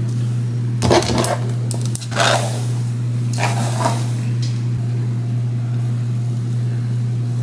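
A steady low hum, with short rustles of hands moving through long straight hair about one, two and three and a half seconds in.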